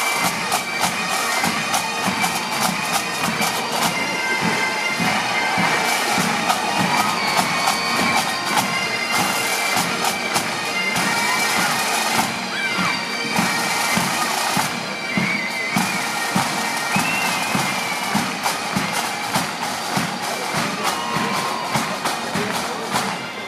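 Massed pipes and drums playing: bagpipes sounding a melody over their steady drones, with fast drumming underneath.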